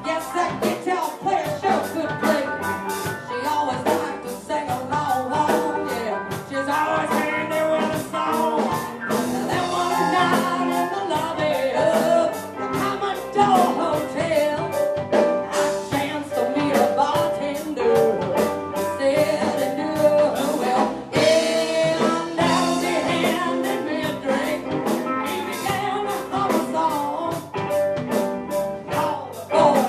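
Live band playing a blues-rock song, with a singer over a steady drum beat.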